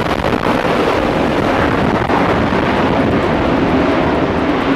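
Twin-engine jet fighter's engines at full power during a catapult launch from a carrier deck: a loud, steady roar.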